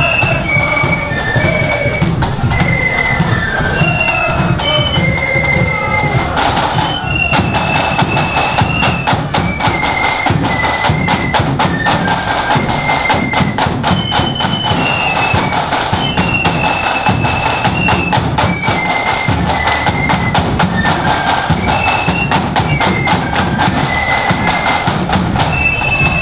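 Marching flute band playing a tune: massed flutes carry a high melody over rapid snare drumming and a steady bass drum beat, with a crash about seven seconds in.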